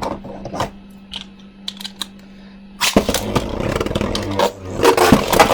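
A few light plastic clicks, then about three seconds in two 3D-printed Beyblade Burst spinning tops are launched into the stadium: a sudden loud whirring with rapid clattering hits as they spin and clash.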